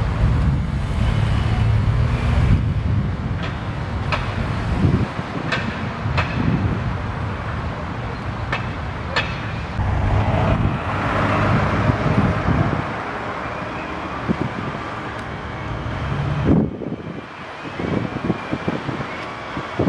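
Engines of police motorcycles and a car passing at low speed, followed by a steadier outdoor rumble with wind on the microphone.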